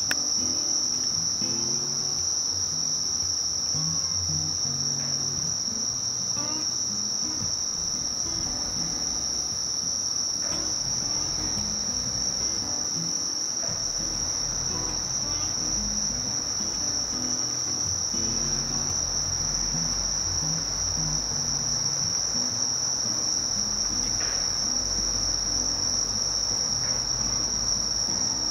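Night-time chorus of singing crickets: one steady, unbroken high-pitched trill that never pauses, with a faint irregular low rumble underneath.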